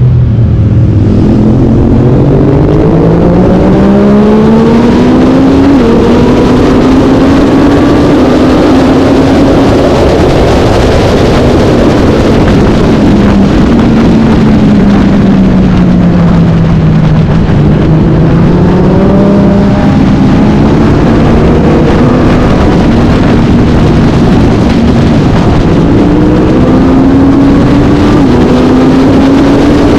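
Racing motorcycle engine at full song, its pitch climbing through the revs with short drops at gear changes, falling away as it slows about halfway through, then climbing again.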